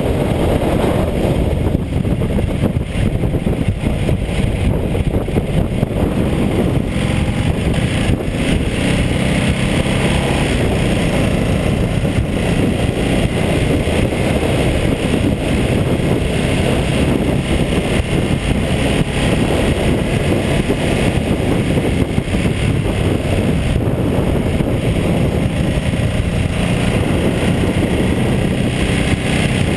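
Ducati Multistrada 1200S's 1198 cc L-twin engine running at road speed, mixed with a steady rush of wind over the bike-mounted camera.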